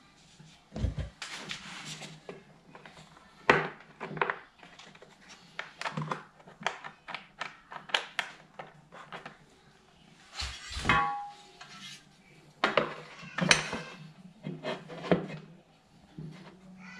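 Hand work on metal bumper brackets and their nuts: a string of irregular knocks and clinks, a few of them ringing briefly, as the nuts are taken off and the brackets fitted.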